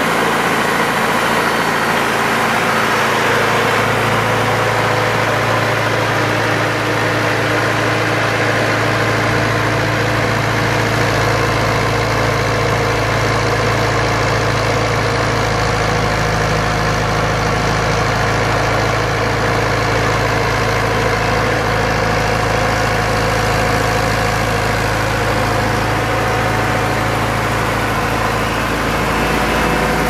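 Cummins four-cylinder diesel engine of a 2006 Bomag 815-2 asphalt paver running steadily, with a low drone that grows stronger about four seconds in.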